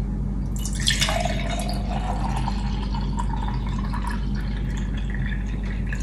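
Tomato-pickle brine pouring from a glass jar into a glass mug. The pour starts about a second in, and its pitch rises steadily as the mug fills.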